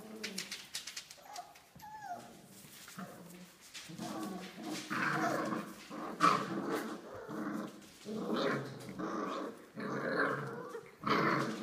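Five-week-old Australian Labradoodle puppies growling at each other as they play-fight, in repeated short bursts from about four seconds in.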